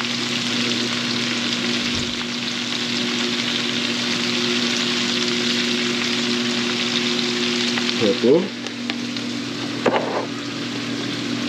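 Chopped cabbage frying in an oiled skillet on a gas burner: a steady sizzling hiss, with a steady low hum underneath. A brief knock comes about ten seconds in.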